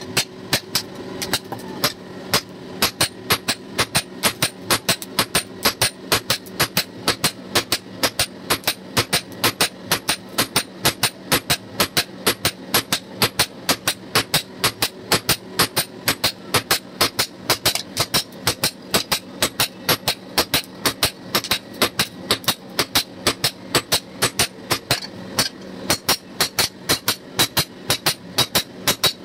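Hand hammer beating a red-hot steel cleaver blade on a steel anvil block, forging it to shape: a long run of rapid, evenly spaced metallic blows, with a low steady hum underneath.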